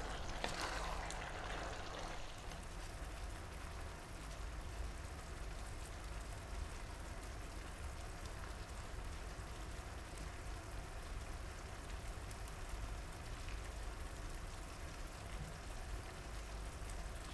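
Pork and broccoli in thickened oyster sauce simmering in a frying pan: a faint, steady bubbling crackle, with a wooden spatula stirring through it in the first couple of seconds.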